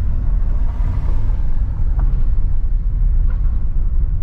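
Car driving over a rough, damaged road surface, a steady low rumble of tyres and engine.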